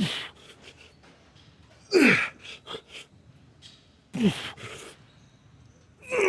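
A man grunting and groaning with effort through heavy lifting reps, one forceful exhale about every two seconds, each falling in pitch with a breathy rush of air.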